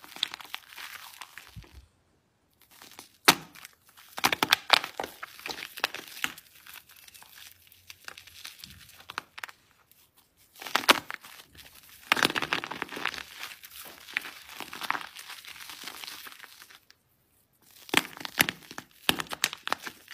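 Hands squeezing wet soap lather and crushing soaked bars of soap, giving crackling, squishing crunches in bursts. A few sharp cracks stand out, about 3 s and 11 s in, and the sound stops briefly twice.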